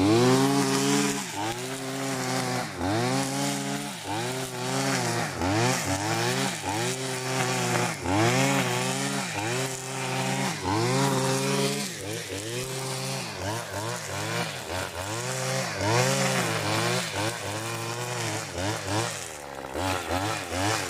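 Husqvarna 535RX two-stroke brush cutter running at high revs while cutting grass. Its pitch dips and recovers about once a second as the cutting head sweeps through the growth and takes the load.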